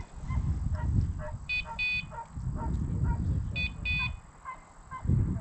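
Bird dog's electronic beeper collar giving short high double beeps about every two seconds, over low rustling noise.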